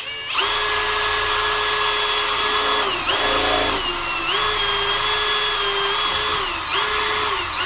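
Cordless drill with a cobalt bit boring a pilot hole through a stainless steel wall panel: a steady high motor whine that starts about half a second in and sags briefly in pitch several times as the bit loads up, winding down near the end.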